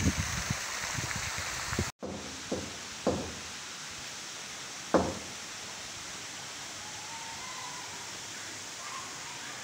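A lion-head door-knocker ring knocked against a carved wooden door three times, the last knock the loudest. Before it, a steady rushing noise that cuts off abruptly about two seconds in.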